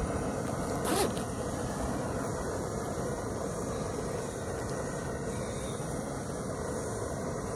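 Steady road and engine noise inside a moving van, with a brief rasp about a second in.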